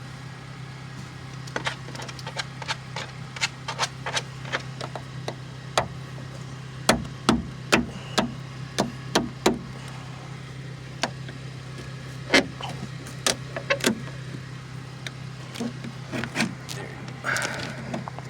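Irregular sharp clicks and knocks of tools and plastic trim parts being handled while a car door panel is taken apart, busiest in the middle, over a steady low hum.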